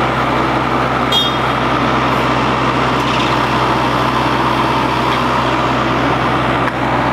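Diesel engine of a compact tracked loader running steadily.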